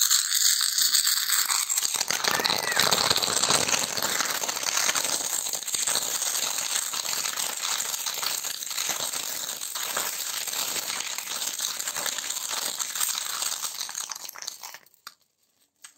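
Ground fountain firework spraying sparks: a steady hissing rush with dense crackling, which dies away near the end.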